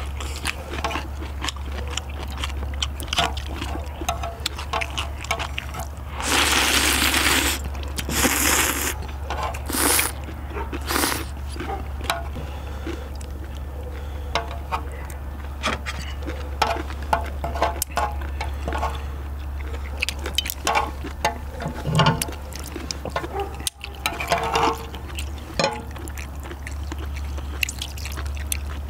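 People eating seafood ramen: noodles slurped and chewed, with tongs, chopsticks and a ladle clicking and scraping on metal plates and a cast-iron cauldron lid, and several louder slurps in a row about six to eleven seconds in. A steady low hum lies underneath.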